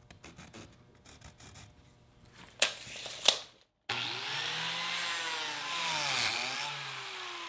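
Biscuit joiner running and cutting biscuit slots into the edge of a Douglas fir board, starting suddenly about four seconds in, with its pitch dipping and rising as the blade plunges into the wood. Before it there are faint scratches and two light clicks while the board is marked out with a tape measure and pencil.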